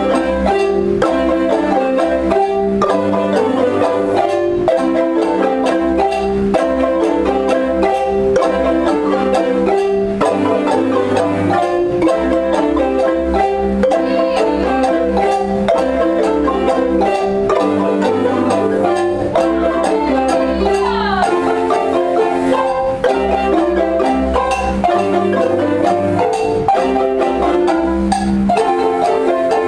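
Ensemble of Zimbabwean-style wooden marimbas, from small high ones to large bass marimbas, played with mallets in interlocking, repeating rhythmic patterns over a changing bass line.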